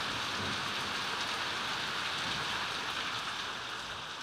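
Heavy tropical downpour: a steady, dense hiss of rain falling, fading out over the last second or so.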